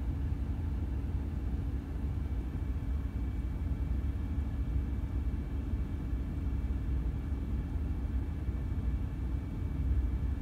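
Steady cab noise inside a 2019 Ram 1500 while its air suspension lowers slowly in the cold: the heater blower running over a low rumble, with no clunks or other distinct sounds.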